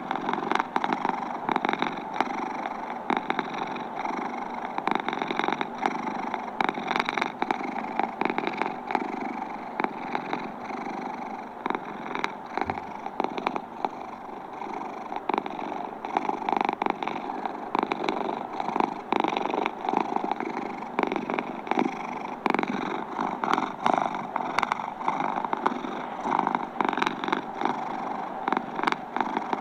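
Domestic cat purring steadily without a break.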